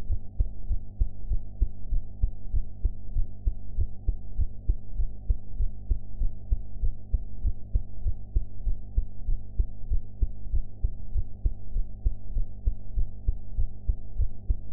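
A young woman's heartbeat after a meal: regular low thumps in a steady rhythm, with a steady low hum underneath.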